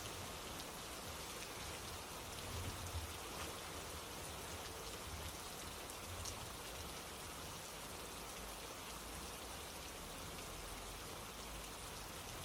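Steady rain falling, a constant hiss with scattered faint drop ticks and a few soft low rumbles about three and six seconds in.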